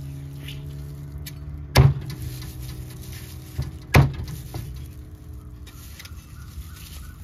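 A heavy cleaver chopping roast chicken on a thick wooden chopping block: two loud chops about two seconds apart, with a few lighter knocks around the second. A steady low hum runs underneath and fades after the first chop.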